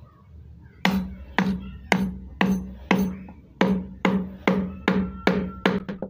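A wooden mallet tapping the handle of a carving chisel as it cuts into wood: about a dozen sharp, ringing knocks at roughly two a second, starting about a second in and quickening slightly near the end.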